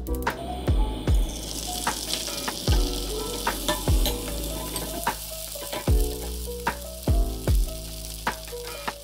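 A thin layer of beaten egg sizzling in a hot nonstick frying pan. The sizzle starts just after the beginning, is strongest over the first few seconds, then eases. Background music with a deep, thudding beat plays throughout.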